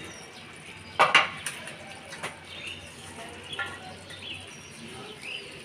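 Quiet background with a few faint, short bird chirps and one brief louder sound about a second in.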